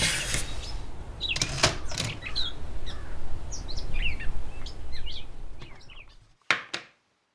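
Birds chirping over a steady low rumble that fades out about six seconds in, then two sharp knocks in quick succession.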